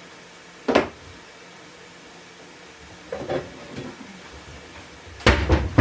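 Kitchen utensils and containers being handled: a sharp knock about a second in, softer knocks around three seconds, and a louder cluster of knocks near the end.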